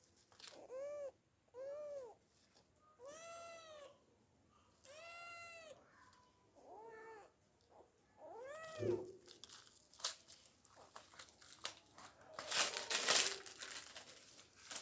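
A cat meowing about six times, each meow bending up and down in pitch and lasting about half a second to a second. Then, in the last few seconds, a spell of scratching and rustling noise.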